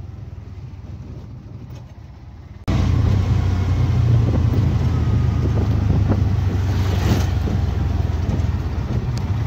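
Auto-rickshaw engine running as the three-wheeler drives along, heard from the passenger seat of the open cabin. The steady engine hum, with road noise, jumps much louder about three seconds in.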